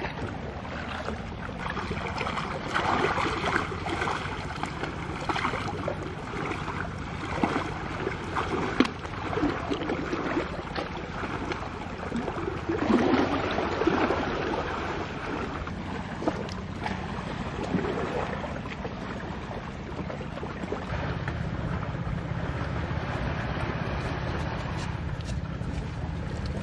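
Shallow seawater splashing and sloshing irregularly around wading legs, over a steady low rumble of wind on the microphone and surf. The splashing dies away in the last few seconds.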